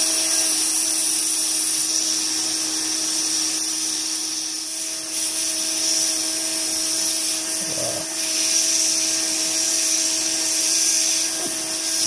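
Hot air rework gun blowing steadily: an even rushing hiss over a steady hum. It is heating the solder joints to lift a damaged IR sensor off a circuit board.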